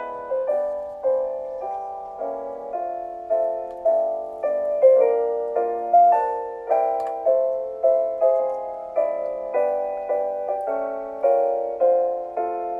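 Solo piano music, a gentle melody of single struck notes at about two a second, each fading before the next.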